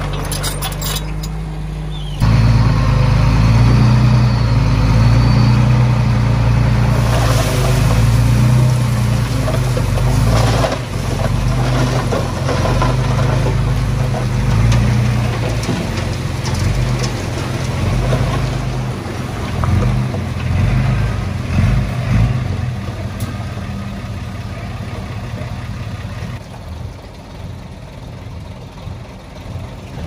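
Heavy diesel engine of earthmoving machinery working under load, jumping sharply louder about two seconds in. Irregular clattering and knocks of stone and dirt run through the middle, and the engine eases off toward the end.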